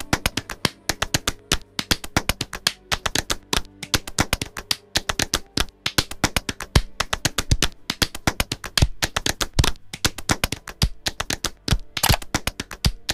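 Fast percussive rhythm of sharp taps and clicks, several a second, with almost no melody.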